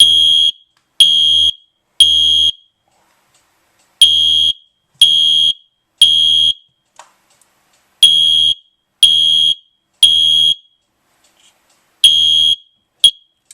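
Wheelock MIZ-24 mini fire alarm horn sounding a high-pitched electronic tone in the temporal-3 evacuation pattern: three half-second blasts a second apart, then a pause, repeated three times. The fourth set stops after one blast and a brief chirp as the horn is shut off.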